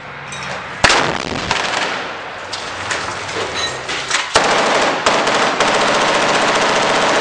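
An RPG launch blast about a second in, followed by scattered gunshots. Rapid automatic rifle fire then sets in about halfway through and keeps up densely to the end.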